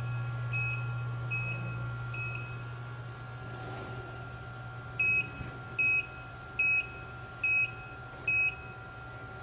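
Coordinate measuring machine probing holes on a part, with a short high beep each time the touch-trigger probe registers a hit: three beeps in the first two seconds, then five louder ones evenly spaced a little under a second apart. A low steady machine hum runs underneath.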